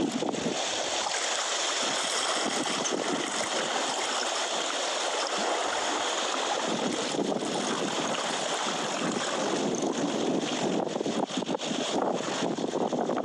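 Sea water washing and splashing against shoreline rocks: a steady rushing noise with some choppier splashes near the end.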